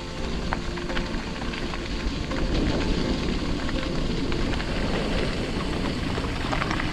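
Bicycle rolling over a rough, wet dirt track: a steady rush of tyre noise with scattered crackles and clicks and a low rumble. The tail of background music fades out in the first second or so.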